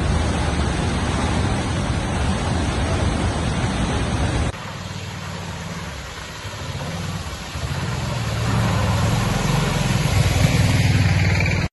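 Floodwater rushing loudly over a road causeway. About four and a half seconds in, this cuts to an auto-rickshaw's small engine coming closer through a flooded lane, getting louder as it nears, with its tyres splashing through the water.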